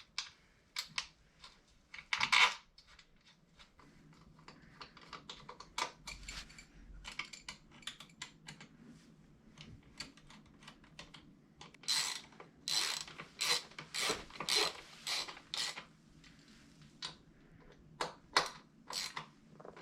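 Hand tools working on the bolts of a motorcycle chain guide: a ratchet clicking in short bursts, with scattered clinks and knocks of metal parts. The densest run of ratcheting comes about two thirds of the way through.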